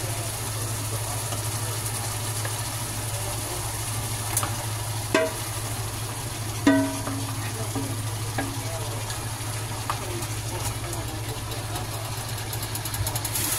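Kitchen cooking sounds: a steady low hum with a few knocks and clinks of a utensil against a metal pot. The loudest comes about seven seconds in and rings briefly.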